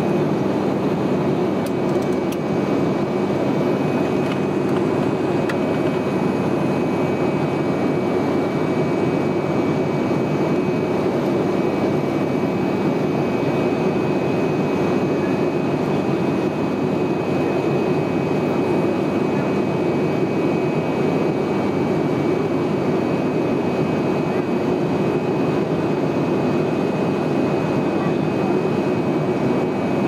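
ATR 72 turboprop engine and propeller droning steadily in cruise, heard from inside the passenger cabin, with a steady high whine over the low drone.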